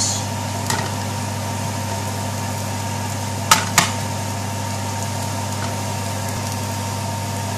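Metal spoon stirring onions and spices in a frying pan, with two sharp clicks of the spoon against the pan a little after halfway, over a steady low hum.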